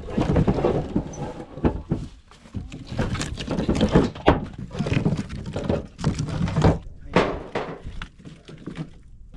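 Pieces of small split firewood being tossed onto a load, landing in a quick irregular series of thunks and clatters.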